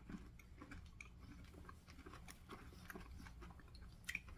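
Faint chewing of sugar-shelled chocolate candies like M&M's, with small scattered crunching clicks and one sharper click near the end.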